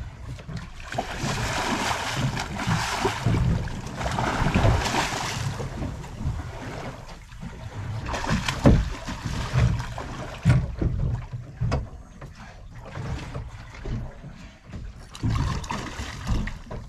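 Water splashing at the side of a small boat and wind on the microphone while a hooked tope shark is held at the stern, with a stretch of louder rushing splash about a second in and several sharp knocks against the boat a few seconds later.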